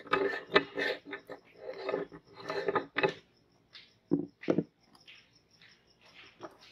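Metal meat grinder being taken apart by hand: the front locking ring is unscrewed and the perforated plate, clogged with grape pulp, is pulled off, giving metal scraping and clicking. The busy scraping fills the first three seconds; after that come a few short, separate knocks and clicks.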